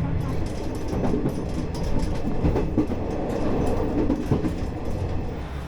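A vehicle in motion: a steady low hum and rumble with rattling and scattered clicks.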